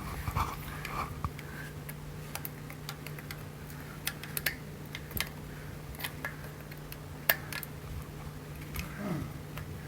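Scattered light metallic clicks and ticks of a snap ring and tools being worked onto the axle shaft of a Warn locking hub, over a steady low hum.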